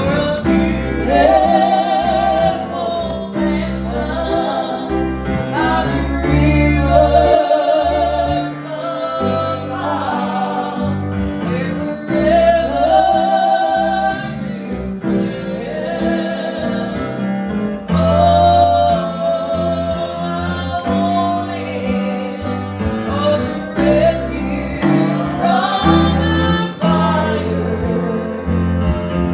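Women singing a gospel song, holding notes with vibrato, over an instrumental accompaniment with a bass line and a steady beat.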